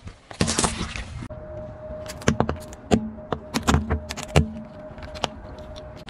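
A car tyre rolling onto an orange, a brief crushing squash, then a run of sharp pops and cracks as the tyre flattens mesh squeeze balls filled with gel beads, over a steady low hum.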